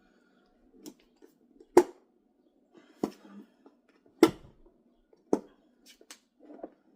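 Plastic clicks and knocks from an iRobot Roomba's dust compactor bin as its catches are pressed and it is pried open: about six sharp snaps spaced a second or so apart, the loudest about two and four seconds in.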